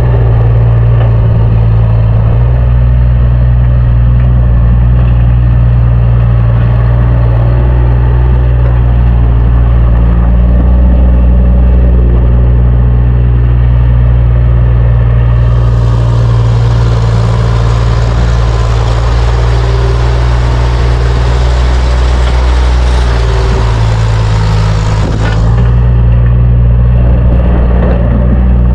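Engine running steadily under load, with a loud low hum. A rushing hiss joins it at about the midpoint and cuts off suddenly about ten seconds later.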